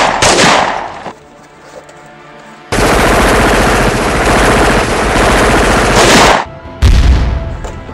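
Loud gunfire: a couple of sharp bursts in the first second, then a sustained stretch of rapid automatic fire lasting about three and a half seconds, followed near the end by one heavy, deep boom that dies away.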